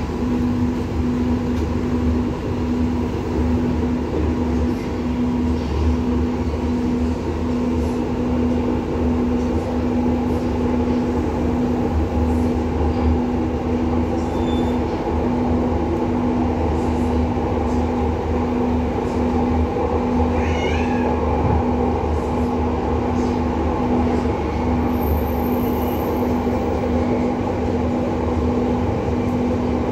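Palembang LRT light-rail car running, heard from inside the cabin: a steady rumble with a constant droning hum. About two-thirds of the way through there is a brief wavering high squeal.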